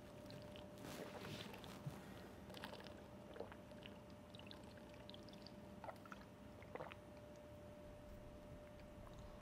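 Near silence: a faint steady hum, with a few soft clicks and sips as a plastic water bottle is drunk from.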